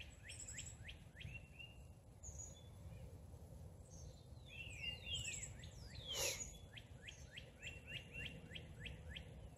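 A songbird singing faintly: runs of quick downslurred whistled notes, about four a second, one run near the start and a longer one in the second half, with a few longer falling calls between them. A single soft tap about six seconds in.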